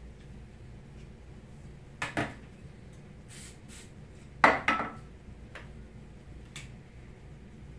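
Hard objects clacking against a tabletop as hair tools are put down and picked up: a pair of clacks about two seconds in, a brief rustle, then a louder pair about four and a half seconds in and a faint click near the end.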